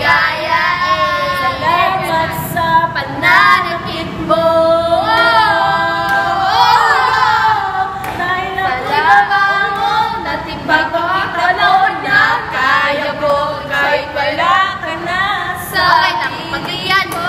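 A group of young women singing together, their voices holding and sliding between notes.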